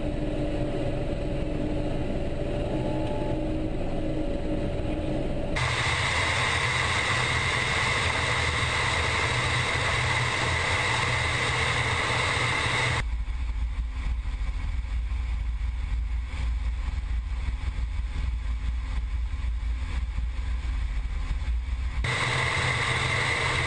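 Mi-24 attack helicopter in flight, heard from a camera mounted on the outside of its nose: a steady, loud rumble of engines, rotor and rushing air. A steady high whine comes and goes, and the sound changes abruptly about 6, 13 and 22 seconds in.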